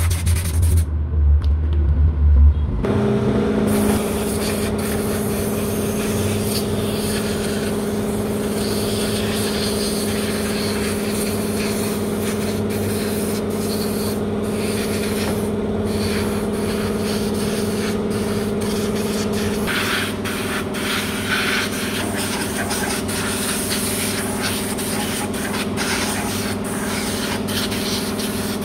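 Compressed-air blow gun hissing in short, uneven blasts as it blows dust out of the slots and windings of a 15 kW DC generator armature. Under it runs a steady machine hum, which shifts about three seconds in.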